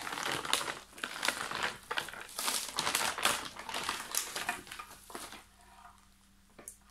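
Plastic packing wrap crinkling and rustling as a graphics card is unwrapped and lifted out of it. The crinkling is dense for about five seconds, then dies away.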